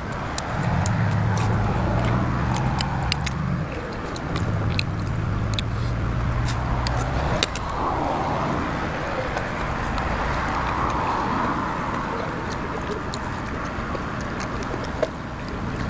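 Close-up chewing and lip smacking with many sharp mouth clicks, over a steady low vehicle engine rumble that stops about seven and a half seconds in.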